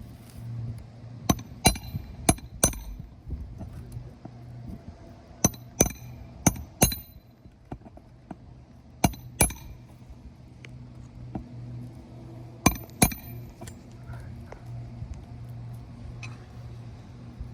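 Hammer striking roofing nails to fasten a shingle: sharp metallic taps, mostly in pairs about half a second apart, in four bursts a few seconds apart, over a steady low hum.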